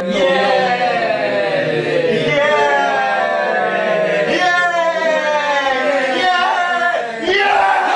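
A group of men chanting together without words, holding long notes over a steady low hum, with several voices sliding down in pitch. The chant breaks off briefly about seven seconds in, then comes back.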